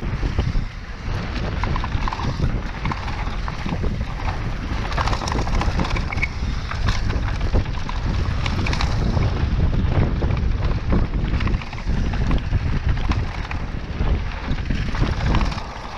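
Wind rushing over the microphone of a mountain bike rider going down a trail, with the bike rattling and knocking over the bumps.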